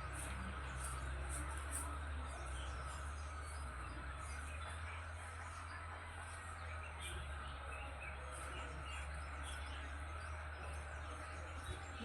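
Birds chirping in the morning: many short, high-pitched chirps scattered throughout, over a steady low rumble.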